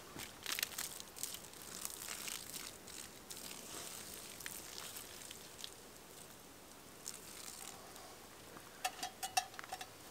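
Water poured from a small pot onto the coals of a campfire in a stone ring, crackling and sizzling as the fire is doused. A few sharp clicks follow near the end.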